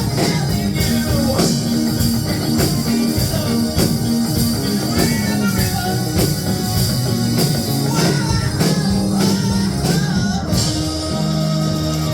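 Rock music with singing over a steady drum beat and guitar.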